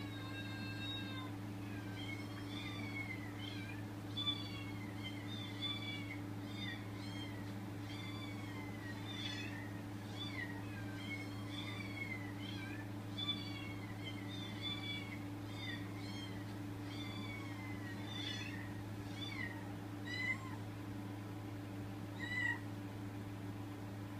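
Recorded cat meows played back to a pet cat: a quick string of short, arching meows, a little under two a second, thinning to a few single meows near the end. A steady low hum runs underneath.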